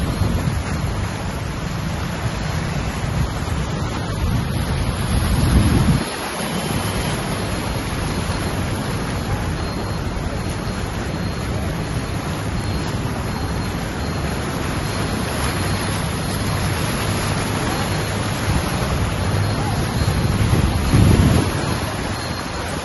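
Wind buffeting the microphone and floodwater rushing and splashing as a scooter rides through a flooded street, swelling louder twice.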